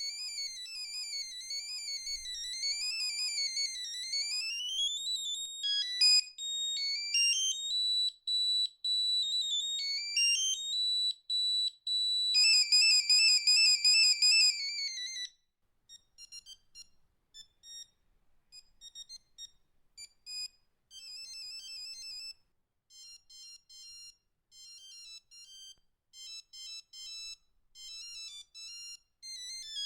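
Nokia 3210 monophonic ringtones played one after another. First comes a tone sweeping rapidly up and down in pitch, then stepped and held beeps and a fast warbling trill, then several short beeping melodies with brief gaps between them.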